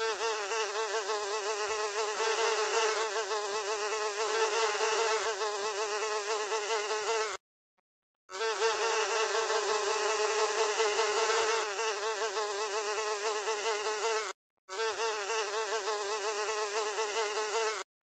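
Housefly buzzing in flight, a steady drone whose pitch wavers up and down. It comes in three stretches separated by short silences: about seven seconds, then six, then three.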